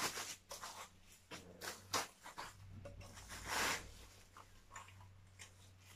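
Light handling noises from an acrylic cosmetic organizer: scattered small clicks and taps of hard plastic, with a brief rustle about three and a half seconds in.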